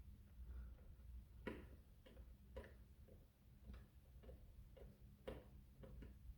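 Faint, irregular clicks, about two a second, of a small screw being turned in by hand with a screwdriver.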